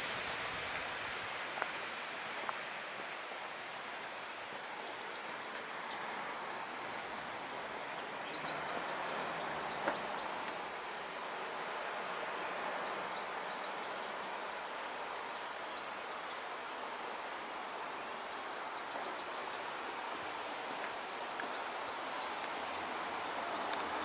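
Steady rush of flowing water. Small birds chirp now and then through the middle.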